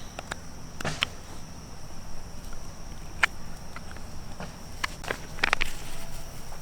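Scattered sharp clicks and knocks, like footsteps and handling, over a steady high-pitched insect drone and a low rumble.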